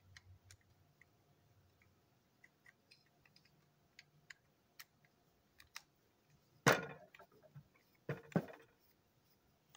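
Screwdriver and small plastic parts of a toy locomotive chassis being handled: scattered light clicks and taps. A louder clatter comes about two-thirds of the way through, and another about a second later.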